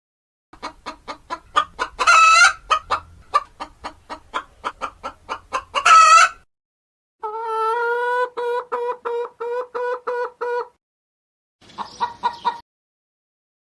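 Domestic chickens clucking in a rapid run of short calls, with two louder squawks, followed by a longer, evenly pulsed call and a short burst of clucks near the end.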